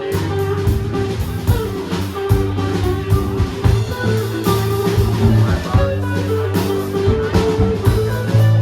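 Live blues-rock band playing an instrumental passage: electric guitar over a bass line and drum kit, with regular drum hits.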